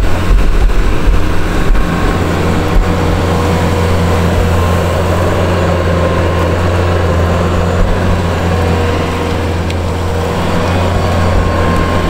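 Bobcat S650 skid steer's diesel engine running steadily under load as it pushes heavy, wet snow with a 120-inch Vernig low-profile snow pusher.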